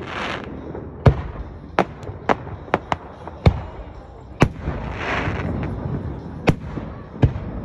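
Aerial fireworks display: shells bursting overhead in a string of sharp bangs, about nine in seven seconds at uneven intervals, with a short stretch of hiss about five seconds in.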